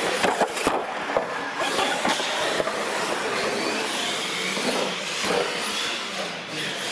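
Radio-controlled monster trucks racing at full speed: a steady whir of motors and drivetrains with tyre noise on the concrete floor, and a few knocks in the first second or so as a truck bounces off the line.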